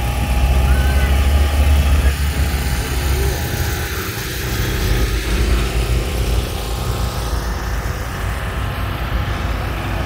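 Low, steady rumble of car engines running, loudest in the first couple of seconds.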